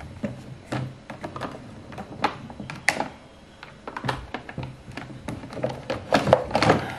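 Hands handling the plastic tubing and filter housings of an RO water purifier: scattered clicks, taps and knocks of hard plastic parts being pushed and fitted, with a louder cluster of knocks about six seconds in.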